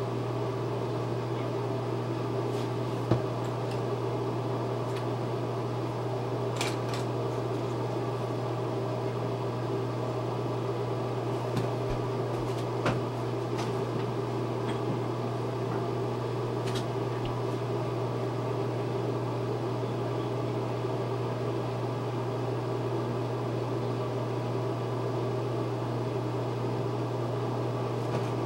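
A steady low machine hum, with a few short, faint clicks and taps scattered through it, the sharpest about three seconds in.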